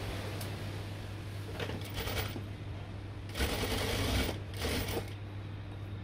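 Sewing machine stitching in three short runs, the loudest lasting about a second, over a steady low hum.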